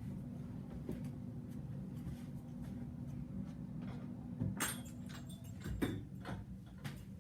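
Slime mixed with clay being kneaded and rolled by hand: scattered sticky clicks and squelches, busiest a little after four seconds in and again near six seconds, over a steady low hum.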